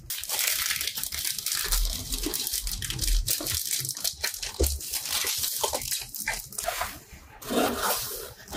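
Packaging being handled and torn open: crinkling, tearing and rustling with many small irregular clicks and knocks.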